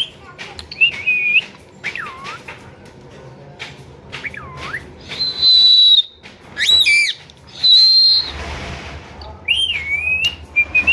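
Ring-necked parakeet whistling and calling: short sliding whistles that dip and rise, then high, shrill held calls about five and seven and a half seconds in, with a brief rush of noise just after.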